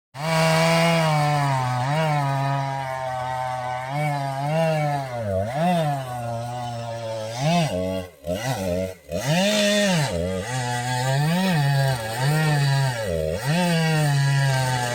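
Stihl two-stroke chainsaw running at high revs, its pitch repeatedly dipping and climbing back as it is throttled or loaded in the cut. The sound drops away briefly twice a little past halfway.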